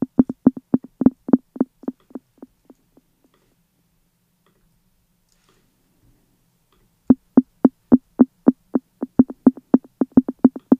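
Arturia Drumbrute Impact's metronome click, resampled two octaves down and played from a sampler through a delay: a fast train of short, low pitched clicks, about four a second, whose echoes fade out about three seconds in. After a pause, a second run of clicks starts about seven seconds in.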